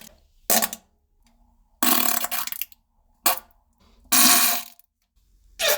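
A string of five separate farts, three brief and two lasting most of a second, with short silences between.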